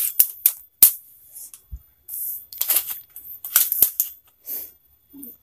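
Metal tape measure handled and extended, giving a series of irregular sharp clicks and short scraping rattles, with one dull thump just before the two-second mark.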